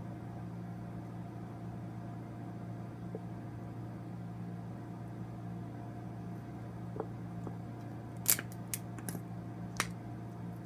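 Steady low hum of a household appliance running, the "air dryer", with a few sharp clicks and snaps about seven to ten seconds in, the loudest just after eight seconds.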